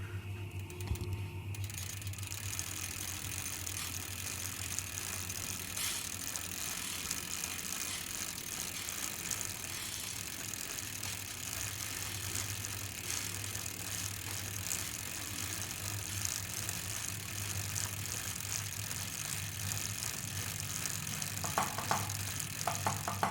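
Bicycle freewheel ratchet ticking rapidly as the bike coasts, over a steady low hum, with a few rattling knocks near the end.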